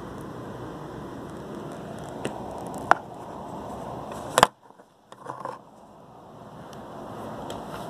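Steady outdoor background hiss of wind and distant city noise, broken by a few sharp clicks and a crackling scrape from the phone being handled. Just after the loudest click the background cuts out for about half a second, then fades back in.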